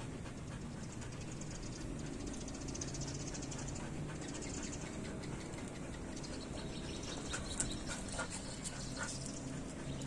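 Dog panting steadily, with a few short, high squeaks near the end.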